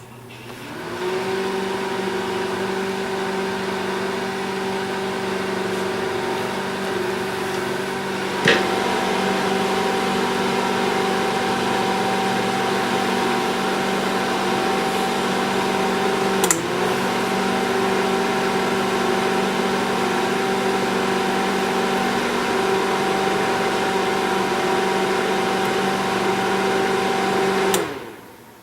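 A 2002 General Electric microwave oven, its magnetron, light and turntable switched by relays, running a cooking cycle. A click starts it and the steady hum builds over about a second. Sharp relay clicks come twice, and the hum's tone changes after the first: the oven is stepping through a programmed cooking sequence. The hum stops near the end.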